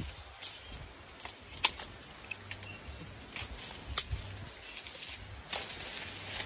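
Irregular sharp clicks and snaps of branches, twigs and leaves as someone climbs through a mango tree, over a low rumble.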